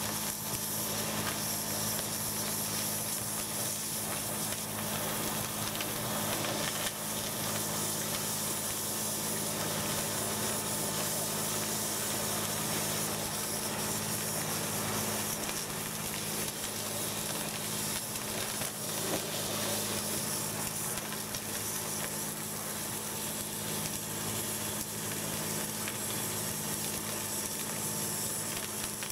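Warthog hydrojetting nozzle blasting high-pressure water through a blocked 4-inch pipe, cutting through the blockage: a steady hiss of spray with a low steady hum underneath.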